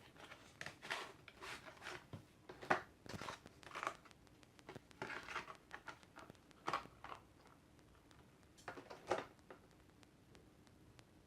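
Faint, irregular handling noises: short scrapes, clicks and rustles of hands working with the M.2 SSD and the open laptop's internals, with a louder click about three seconds in and again near nine seconds.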